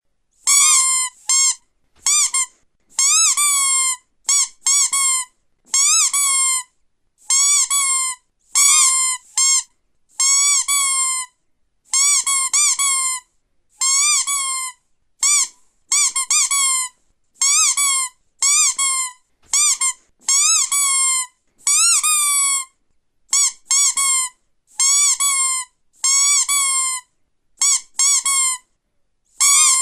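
Squeaky toy squeezed over and over: about two dozen short, high, pitched squeaks, some single and some in quick pairs, with brief gaps between them.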